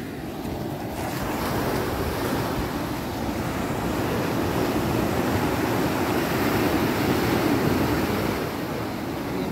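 Sea surf washing steadily with wind buffeting the microphone, the wash swelling louder a little past the middle.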